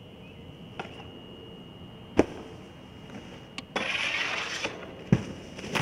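Snowboard striking a metal handrail with a sharp knock, then sliding along it with a scraping hiss for about a second, and landing with a heavy thud near the end.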